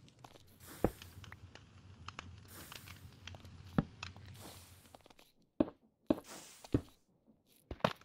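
Irregular knocks and thumps, about six of them, over faint rustling.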